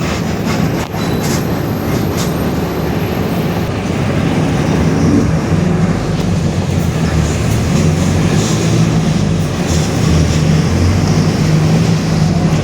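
Mercedes-Benz OF-1721 BlueTec 5 city bus under way, heard from inside: a steady low engine and driveline drone with a growling differential, over road and body rattle.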